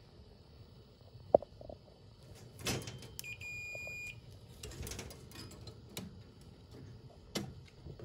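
Test leads and wires are handled with rustling and a few sharp clicks, the loudest about a second in. About three seconds in, a digital multimeter gives one steady high beep lasting just under a second.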